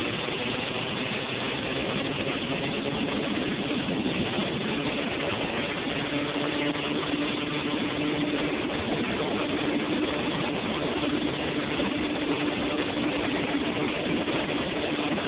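1986 Honda TRX250R's single-cylinder two-stroke engine running while riding down a road, under a steady rush of wind over the onboard microphone. The engine note holds a steady pitch from about five seconds in, as at a constant cruising speed.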